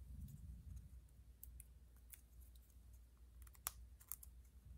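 Faint, scattered small clicks of paper pieces and a glue pen being handled on a cutting mat, over a low steady hum.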